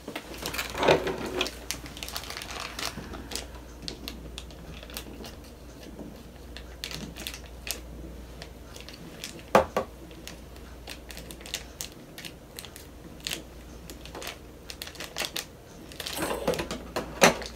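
Small clear plastic pouch of slime crinkling and clicking as it is tugged and worked at to get it open, in irregular rustles and ticks. Louder clicks come about a second in, about nine and a half seconds in, and in a cluster near the end.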